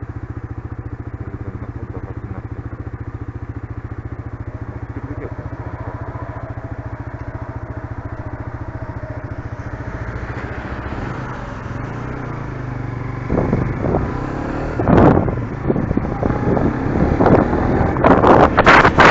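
Suzuki GSX-R125's single-cylinder four-stroke engine idling steadily at a standstill, then revving up about halfway through as the bike pulls away. In the last few seconds, wind buffets the helmet-mounted microphone as speed builds.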